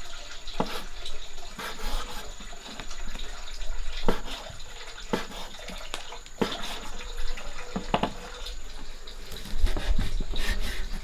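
Water running and splashing, with a handful of sharp knocks and clatters of things being handled.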